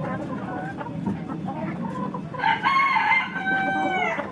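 A rooster crowing once, a long drawn-out crow starting a little past halfway that drops in pitch at its end, over the continuous clucking and chatter of many chickens in a poultry pen.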